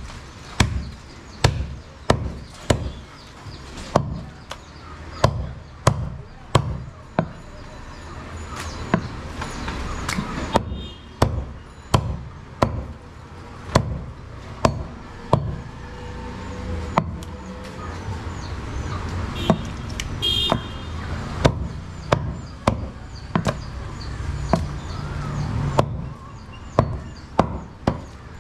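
Heavy cleaver chopping goat meat on a round wooden block: a steady run of dull chops, about three every two seconds, spaced a little wider around the middle.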